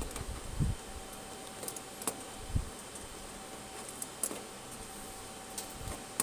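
Scattered light metallic clicks and clinks of a wrench working the RF output cable's coaxial connector as it is tightened, with a few soft low thumps, over a steady faint equipment hum.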